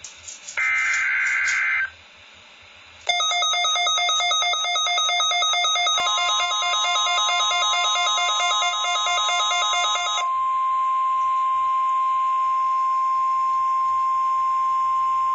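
NOAA Weather Radio alert tones from a receiver's speaker: a short screechy burst of SAME digital header data about half a second in, then from about 3 s a garbled, stepping warble of several electronic tones. About 6 s in, the steady 1050 Hz warning alert tone starts, which is the signal that switches on alert-ready weather radios; it holds to the end.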